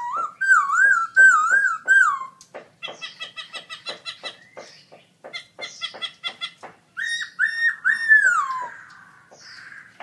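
Black-throated laughingthrush (Garrulax chinensis) singing: loud looping whistled phrases, then a fast run of short repeated notes at about five a second, then more looping whistles ending in a long falling slur.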